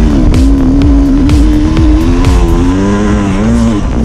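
Two-stroke Sherco dirt bike engine running hard under the rider, its pitch holding steady, then rising and falling with the throttle several times. Short knocks and thumps from the rough track come through the bike-mounted camera.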